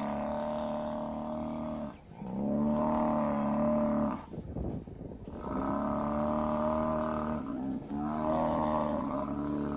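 Buffalo bellowing: four long, steady-pitched calls of about two seconds each, with short breaks between them.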